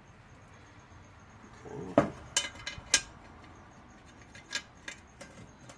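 Small metal parts clinking as lawnmower blade hardware (blade, washer and nut) is handled and fitted. After about two seconds come three sharp clinks, then a few lighter ones.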